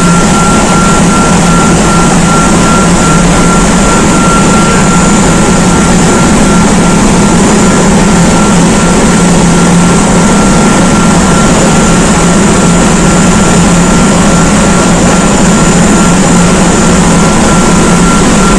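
Loud, steady running of a ship's engine-room machinery, with a constant high whine over a deep hum.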